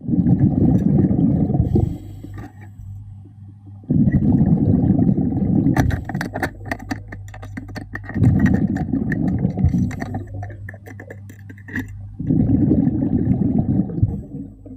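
A diver's exhaled breath bubbling out underwater in four bursts about four seconds apart, with scattered sharp clicks and crackles between breaths.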